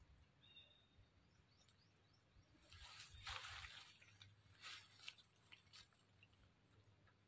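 Faint wet, squelching mouth sounds of a macaque biting and chewing soft ripe mango. The noisiest stretch comes about three seconds in, followed by a few soft smacking clicks, over an otherwise near-silent background.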